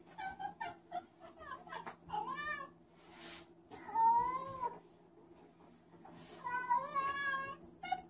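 Domestic cat vocalising: a run of short chirps, then longer wavering meows, and a long warbling, trilling call about six seconds in.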